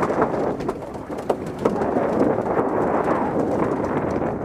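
Steady rushing noise of wind and sea water along the side of a fishing boat out on open water, with a few short ticks.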